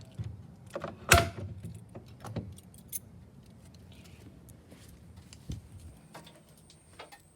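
Jangling and clicking of small hard objects being handled, with one loud knock about a second in. A faint, high steady whine comes in about six seconds in.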